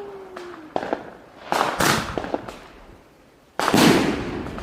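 Roman candle firing its shots, a mix of colour stars and salute reports. Two sharp bangs come close together about a second and a half in, then a louder bang near the end after a short lull.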